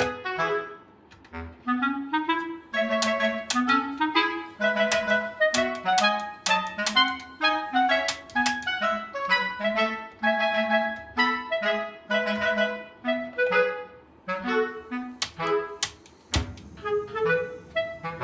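Background music led by a clarinet-like woodwind melody over a steady rhythmic beat.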